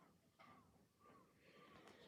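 Near silence: faint, evenly repeated short calls, about two a second, with a few soft breathy sniffs.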